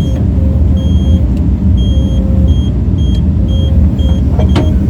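John Deere 135G excavator's diesel engine running steadily, with a warning beeper sounding in a run of short, evenly spaced beeps while the bucket is being taken off.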